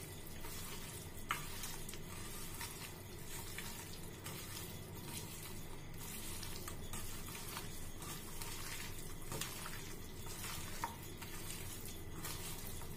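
Raw chicken being mixed and squeezed by hand in a wet masala marinade in a steel bowl: a steady, soft, wet mixing sound, with a few light clicks.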